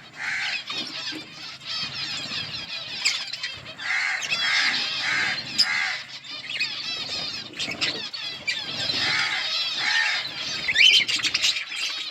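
A colony of budgerigars chirping and warbling, many birds at once in a dense, continuous chatter, with louder calls breaking through every second or so.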